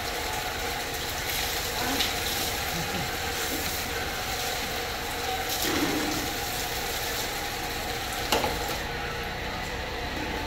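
Water poured from a dipper splashing over a wet dog and onto the floor, over a steady rush of running water. There is a sharp knock about eight seconds in.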